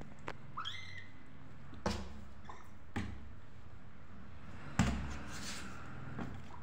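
A kitten gives a short, high mew that rises in pitch about half a second in, and a fainter mew a couple of seconds later. Several sharp knocks and thumps come in between, the loudest near five seconds in, over a steady low hum.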